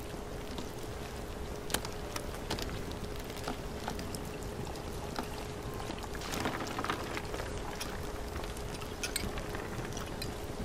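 Background tapping track: a steady soft patter and hiss, scattered light taps and clicks, and a faint steady hum underneath.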